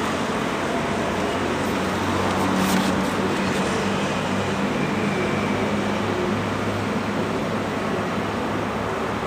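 Steady road traffic noise, with the low engine hum of a passing vehicle swelling about two seconds in and fading after about seven seconds.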